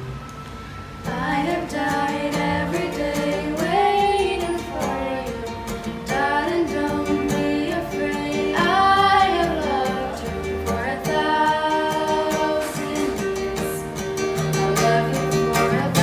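A female voice singing a song over steady instrumental accompaniment, the voice coming in about a second in.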